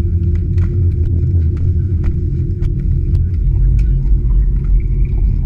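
Wind buffeting an action camera's microphone as a steady low rumble, with sharp clicks and clacks of skis and ski gear and faint voices of skiers nearby.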